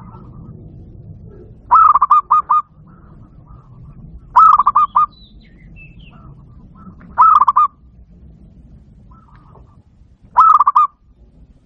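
Zebra dove (perkutut) cooing: four short phrases about three seconds apart, each a quick run of notes that ends in two or three separate notes.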